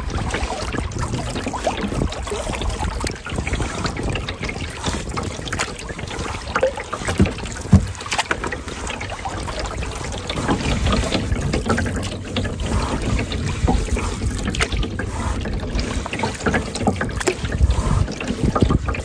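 Canoe paddle strokes dipping and pulling through lake water, with water trickling and lapping along the canoe's hull.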